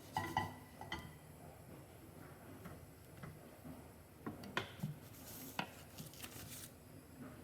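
Kitchen utensils tapping and knocking against a frying pan while pancakes cook, with scattered clicks and a few brief hissy scrapes.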